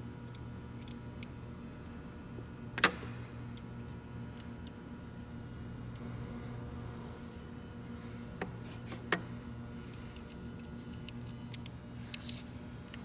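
Sharp metallic clinks of hand tools and parts on the gearbox: one loud clink about three seconds in and a few lighter ones later. A steady low hum runs underneath.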